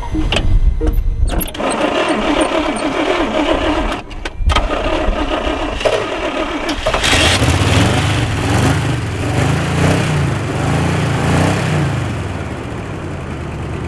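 1973 Chevy one-ton's 350 small-block V8 being cranked on the starter in two goes, with a short stop about four seconds in. It catches about seven seconds in and runs, the revs rising and falling as it is blipped: a first start after about 13 years sitting.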